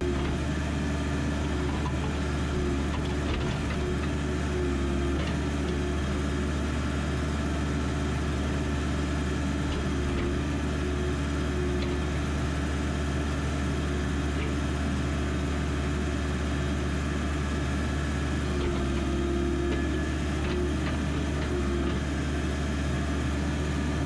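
Backhoe engine running steadily while the digging arm is worked, heard from the operator's seat, with a higher tone swelling twice.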